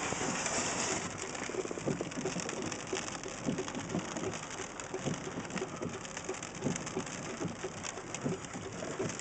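Heavy rain falling, with a steady hiss and many separate drops striking a nearby surface in an irregular patter.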